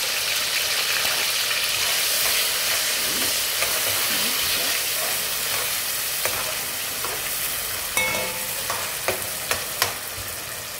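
Sliced onion and sweet pepper seasoning sizzling in hot oil in a metal pot, stirred with a metal spoon that knocks against the pot a few times near the end.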